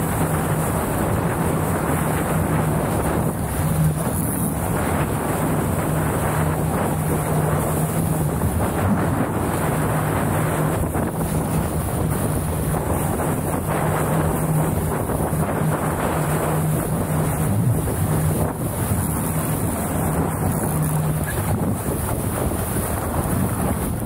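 Strong wind buffeting the microphone on a sailboat under way: a loud, steady rush. Underneath runs a steady low hum that stops about 21 seconds in.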